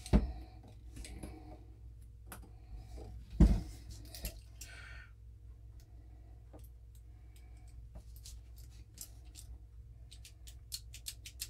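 Small metallic clicks and taps of a Ruger Redhawk revolver's parts being handled as the hammer pin is run through the frame and the action is worked back together. There are two sharper knocks, one right at the start and one about three and a half seconds in, and a quick run of light clicks near the end.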